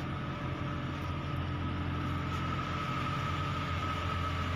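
Steady low drone of an idling engine, with a constant high whine above it.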